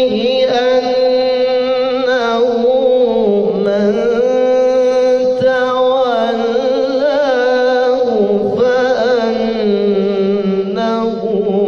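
A man's voice reciting the Quran in melodic tilawah style, drawing out long held notes with wavering ornaments in maqam Nahawand with the Kurd (Qurdi) variation.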